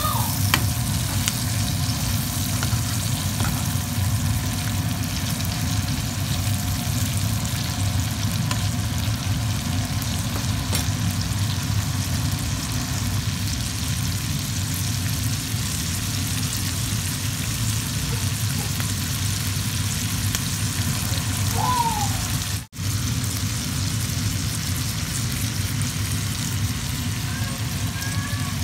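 Green beans frying in oil in a skillet, a steady sizzle over a low hum, with a few clinks of a metal spoon stirring them near the start. The sound cuts out for an instant about three quarters of the way through.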